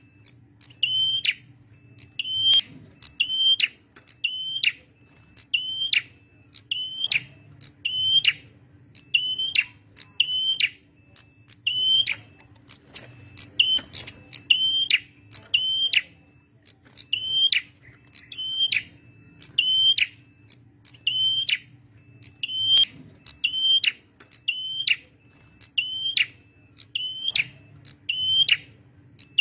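Male prenjak merah calling vigorously: a short, sharp high note repeated about once a second, some in quick pairs, over a faint steady hum.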